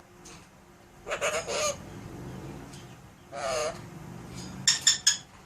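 Pet parrot giving harsh, honking squawks in three groups: a pair about a second in, one around three and a half seconds, and a quick run of short, louder calls near the end.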